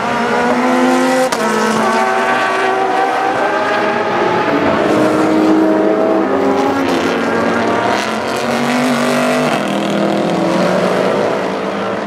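Several GT race cars going past at speed, their engines running hard at high revs, with the engine pitch jumping up and down between held notes several times as the cars change gear.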